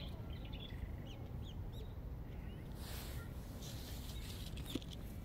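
Outdoor ambience: wind rumbling on the microphone, with scattered short bird chirps and a brief hiss about three seconds in.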